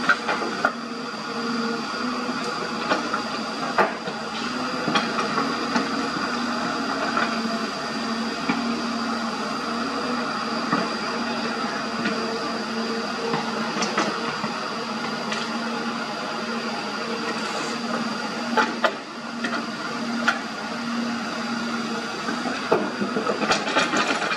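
Hyundai 220 hydraulic excavator working: its diesel engine runs steadily under load while the bucket digs earth and dumps it into a steel dump truck bed, with a steady high whine and scattered sharp knocks and clunks of bucket, soil and rock.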